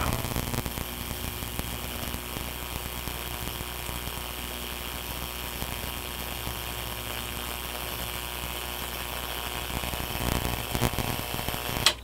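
Jacob's ladder running off a microwave oven transformer: the high-voltage arc buzzing and crackling between the copper wires over a steady mains hum. The crackling gets louder near the end, then everything cuts off suddenly with a click as the circuit breaker trips under the arc's short-circuit load.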